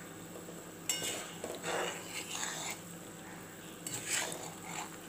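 Metal spatula stirring thick curry gravy in a metal kadai, scraping and clinking against the pan a few times, most strongly about a second in, around two seconds in and about four seconds in.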